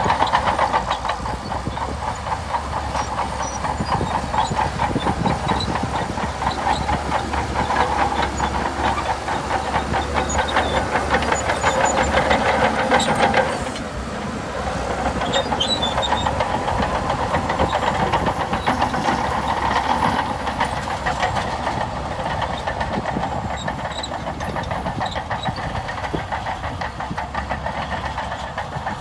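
Shantui DH17C2 bulldozer working, its diesel engine running steadily with a fast, rhythmic clatter. The sound eases off briefly about halfway through, then continues.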